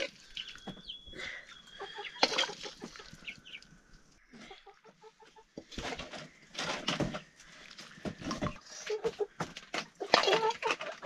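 Chickens clucking, mixed with frequent short sharp knocks and clatter.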